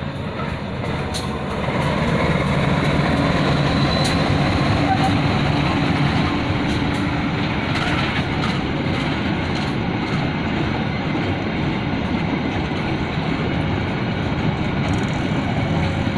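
A train passing close by: a steady rumble of wheels on rails that swells about two seconds in and holds, with scattered sharp clicks.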